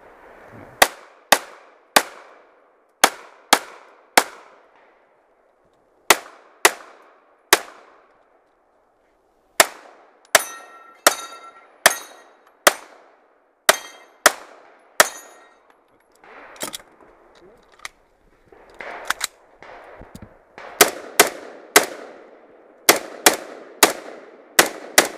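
Rapid gunfire in quick strings of two to five shots, each crack with a short echo: pistol shots through the middle, then AR-15-style rifle shots from about twenty seconds in, after a few seconds' lull. Several shots around ten seconds in leave a short ringing tone, like struck steel.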